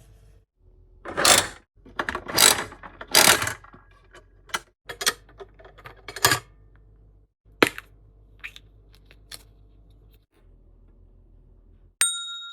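Toy draw (lottery) machine being worked by hand: its mechanism clicks and rattles in a series of short bursts. Near the end a single bell ding rings out.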